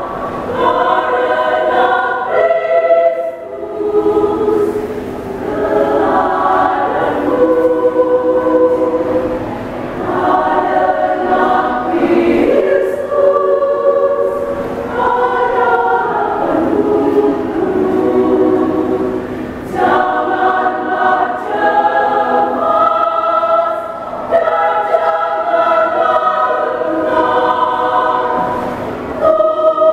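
Women's choir singing a hymn in several parts, in sustained phrases with short breaks between them.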